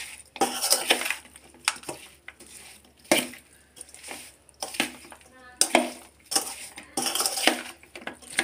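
Slotted metal spatula stirring and scraping through hot fried chicken pieces in a metal bowl, with repeated scrapes and clinks against the bowl's side as spice powder is tossed through the meat.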